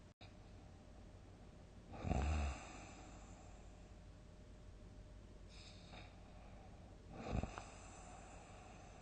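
A sleeping person snoring: one loud, low snore about two seconds in, a faint breath near the middle, and a shorter, sharper snore near the end.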